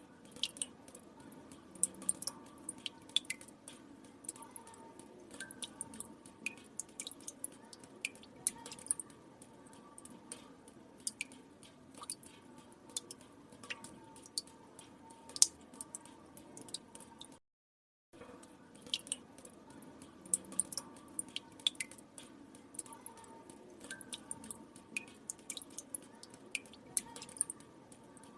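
Water drops dripping into still water: many small, irregular plinks over a faint steady hiss. The sound cuts out briefly about two-thirds of the way through, then the same pattern of drips resumes.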